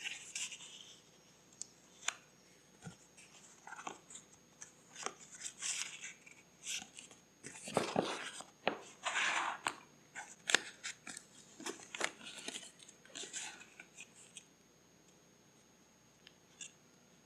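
Scissors cutting paper: a run of short snips and crisp paper rustles that stops a few seconds before the end.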